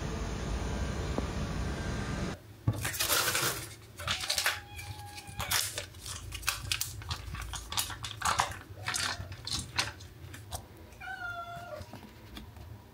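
A steady hiss for the first couple of seconds. Then come rustles and sharp clicks as a foil treat pouch is opened and food is worked in stainless-steel bowls. A cat meows twice, once about five seconds in and again, more clearly, about eleven seconds in.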